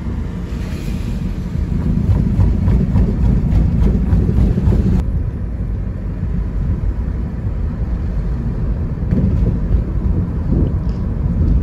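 Wind rushing and buffeting through an open car window as the car drives along, with road noise underneath.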